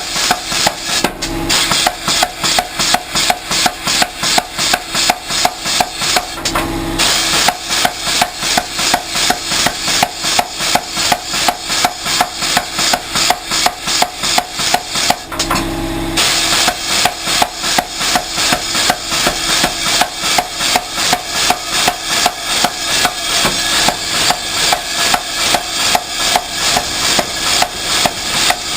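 Home-built pneumatic blacksmith's air hammer, made from David Robertson plans, striking in a fast steady rhythm of about three blows a second. The blows break off briefly three times.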